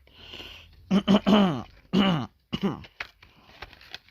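A man grunting and groaning with effort, three short sounds falling in pitch, as he strains to open tough packaging.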